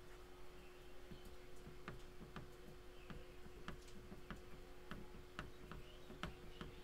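Faint, irregular clicks of a stylus tapping on a tablet screen during handwriting, over a steady low hum.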